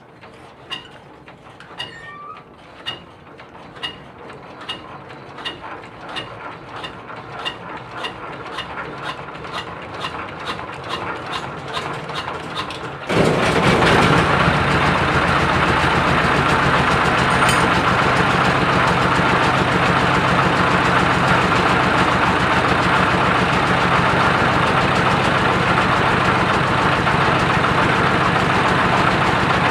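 Single-cylinder diesel engine of a generator set being hand-cranked: an even ticking that speeds up and grows louder for about thirteen seconds. Then the engine fires and runs steadily and loudly, driving the generator through its newly fitted FCL coupling.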